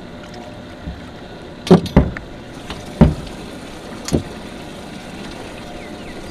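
Four loud thumps on a small aluminum fishing boat as the angler handles gear at the side of the boat. They come within about two and a half seconds, over steady wind and water noise.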